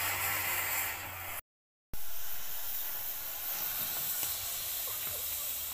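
Steady hiss of a gas cutting torch at work on the rusted body of a Suzuki Carry, broken by about half a second of silence a second and a half in.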